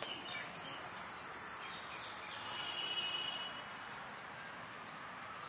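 A high, steady insect trill that stops about three-quarters of the way through, over faint outdoor ambience.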